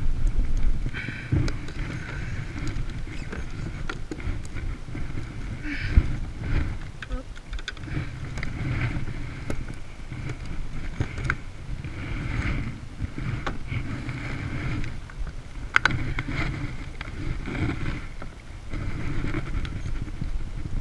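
Wind and lapping water on a plastic kayak, with a few sharp knocks and rustles as a fish and a fishing rod are handled on board.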